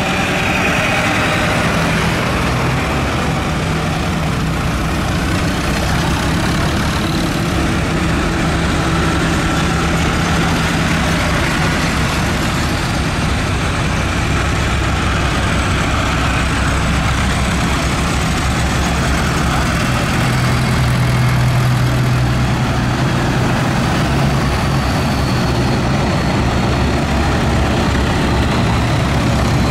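Several diesel farm tractors driving past one after another at low speed, their engines running steadily; one tractor's deeper engine note grows louder from about twenty seconds in.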